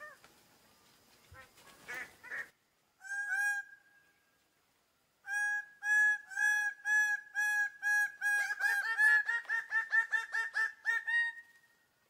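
Male birds-of-paradise calling in display: one loud call about three seconds in, then a string of loud calls about twice a second that speeds up into a fast run about eight seconds in and stops just before the end.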